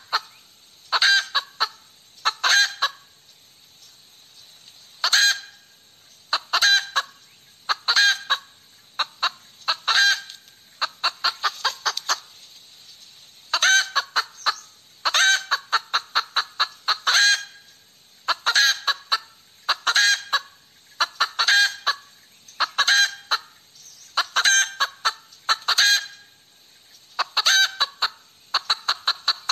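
Hen cackling over and over: loud, sharp calls in quick runs of several at a time, with short pauses between the runs.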